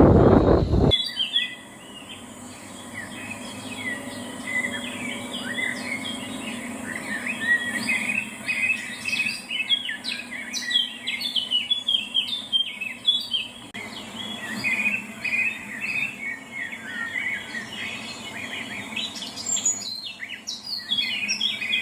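A loud noise cuts off abruptly about a second in. A dense chorus of many small birds chirping and twittering follows and runs on, with quick overlapping high chirps.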